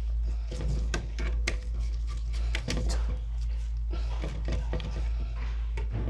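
Handling noise of gloved hands fitting a wire into a contactor's terminal: scattered small clicks and rubbing, over a steady low hum.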